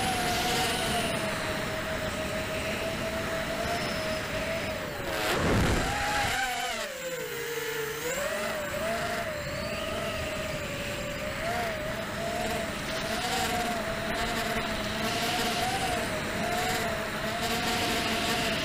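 Brushless motors and propellers of a ZMR quadcopter whining in flight, heard through the onboard camera's microphone with wind hiss. About five seconds in there is a brief rush of noise, then the pitch dips and swells with the throttle and wavers for the rest of the flight.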